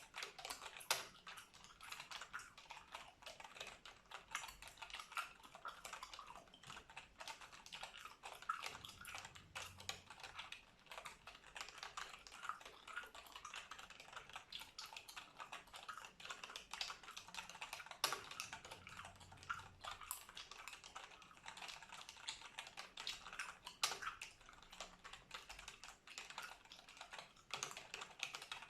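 Computer keyboard typing: a fast, continuous patter of key clicks with a few sharper, louder keystrokes, mixed with gum chewing close to the microphone.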